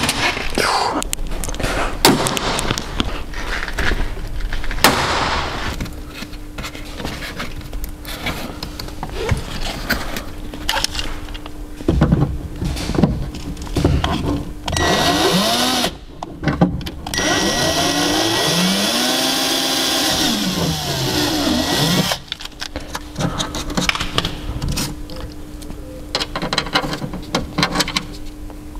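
A small power tool runs in spurts, its motor speeding up and slowing down, amid knocks and handling noise. It is used while cutting a hole in a plastic speaker adapter to pass the wires through.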